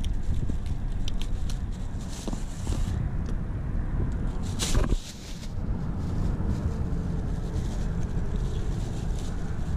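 Wind buffeting the microphone: a steady low rumble, with faint small clicks of handling and one louder brief rustle about halfway through.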